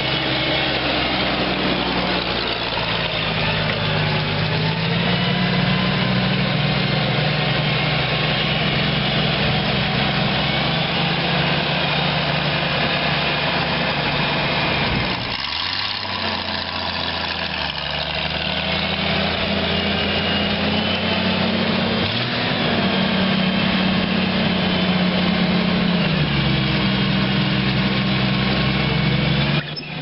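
Diesel engine of a 1987 John Deere 310C backhoe running, its engine speed stepping up and down a few times. About halfway through, the sound changes suddenly and then carries on.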